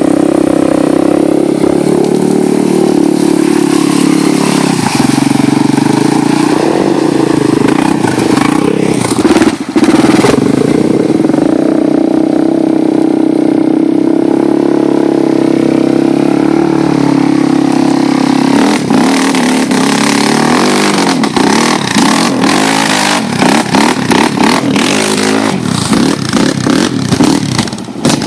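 ATV engines, a Honda 250, a Suzuki 400 LTZ and a Yamaha Raptor 700R, running loud and steady, then revving up and down over the second half with repeated sharp clatter.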